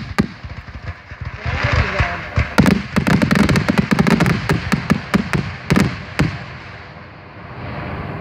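Aerial fireworks shells bursting: one loud bang at the very start, then a rapid barrage of sharp bangs and crackling from about two and a half to six seconds in, dying away near the end.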